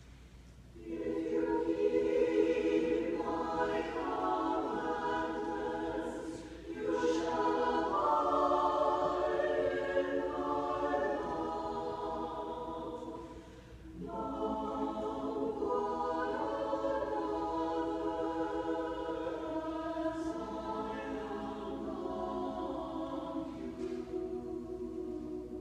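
Mixed choir of men's and women's voices singing held chords in phrases, with short breaths between phrases about a second in, near seven seconds and around fourteen seconds.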